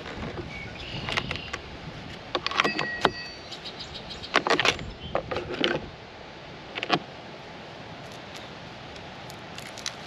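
Steel saw chain of a Master Force 80-volt chainsaw clinking and rattling as it is handled and pulled off the bar. There are clusters of sharp metallic clicks and jingles in the first six seconds, then one last click.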